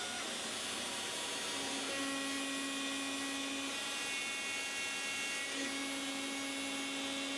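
Inventables X-Carve CNC router's spindle running steadily as a 1/8 inch single-flute upcut bit mills HDPE. A pitched hum rises over the steady machine noise about one and a half seconds in, drops out a little past the middle, and comes back near the end.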